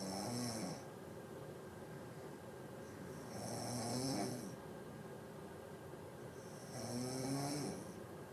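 A sleeping person snoring: three snores about three and a half seconds apart, each a rough, buzzing tone with a breathy hiss over it.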